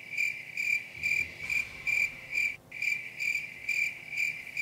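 Cricket chirping as the comedy 'crickets' sound effect, the mark of an awkward silence after a joke that falls flat: an even, high chirp about twice a second, with a brief break about halfway through.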